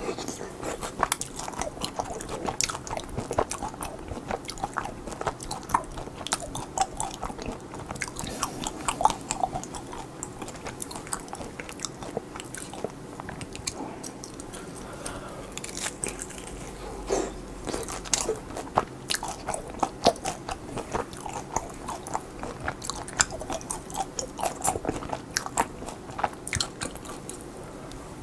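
Biting into and chewing pan-fried hotteok dumplings: crisp crust crunching and wet mouth clicks, coming in quick irregular runs.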